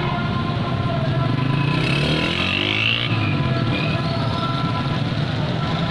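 Road traffic on a rain-wet city street: a steady low engine hum, with a vehicle passing close about two seconds in.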